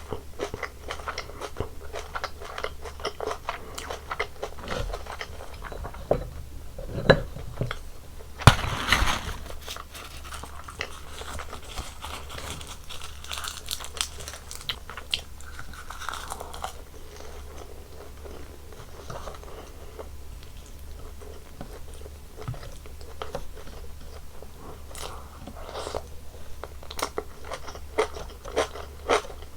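Close-miked eating sounds of a Korean home meal of bulgogi, kimchi, roasted seaweed and white rice: crunchy bites and chewing, heard as many small clicks. A louder burst of sound comes about eight and a half seconds in.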